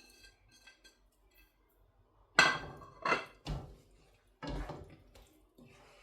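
Kitchen utensils clinking and knocking against a cooking pot: light ringing clinks at first, then a handful of sharp knocks starting about two and a half seconds in.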